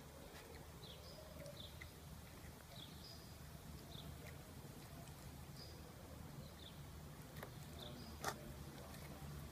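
Faint sounds of a cat eating wet food from a plate: soft chewing clicks, with one sharper click about eight seconds in. Small birds chirp repeatedly in the background, a short high chirp every second or so.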